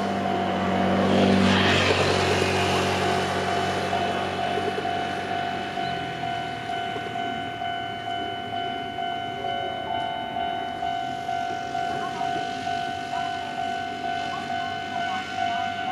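Level crossing alarm ringing with a steady, evenly repeating tone while an electric train runs past; the train's noise is loudest about a second and a half in and dies away by about six seconds, leaving only the alarm.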